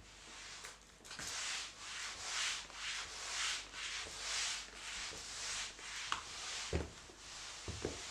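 A mop swishing back and forth across a hard floor in quick repeated strokes, about two a second, with a couple of sharp clicks near the end.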